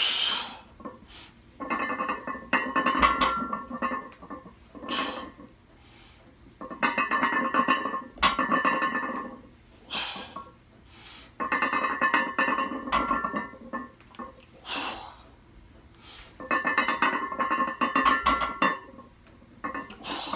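Loaded barbell rattling and clanking through deadlift reps, its iron and bumper plates jangling on the bar. There are four bursts about four to five seconds apart, each with a low thud as the plates meet the floor.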